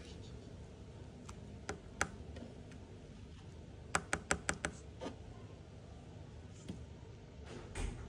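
Light, sharp clicks and taps on the clear plastic bubble of a cat bed with a kitten inside. There is one tap about two seconds in, a quick run of five or six around four seconds in, and one more a second later.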